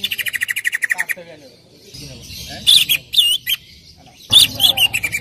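Greater green leafbird (cucak ijo) singing: a fast trill of falling notes, a short pause, then loud sweeping whistles, and near the end more whistles running into another falling trill. A 'pancingan' recording, played to prompt a caged cucak ijo to sing.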